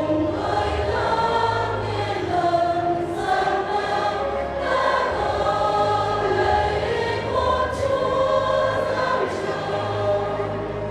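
Church choir singing a Vietnamese Catholic Christmas song, voices holding long notes that move from one chord to the next over an accompaniment with a steady low bass.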